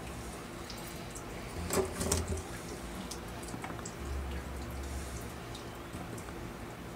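Small clicks and rustling from handling a plastic hose barb fitting and clear vinyl tubing, loudest in a short cluster about two seconds in, over a steady low hum.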